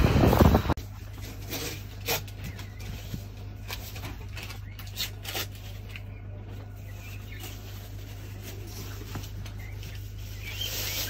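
A brief rush of wind on the microphone in the first second, then a steady low electrical hum with scattered light clicks and taps.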